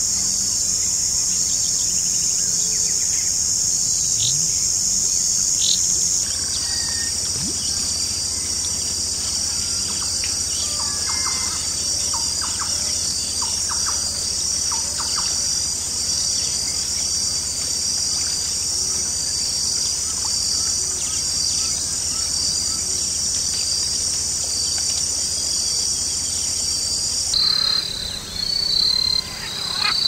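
Dense, steady, high-pitched chorus of insects, with scattered short bird calls through the middle. The chorus changes abruptly about six seconds in and again near the end.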